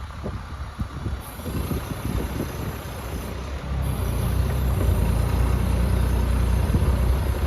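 Kubota diesel engine of a 2024 AGT NT45 mini excavator running, growing louder about halfway through as it revs up.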